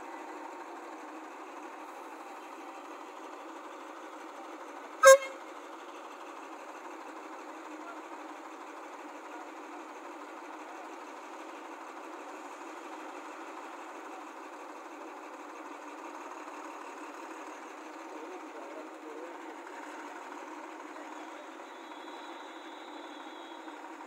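Heavy diesel earth-moving machinery running steadily, an even drone, with one sharp click about five seconds in.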